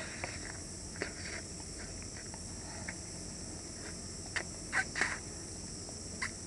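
A person slurping instant noodles and hot soup: a string of short slurps with pauses between, the loudest just after the middle.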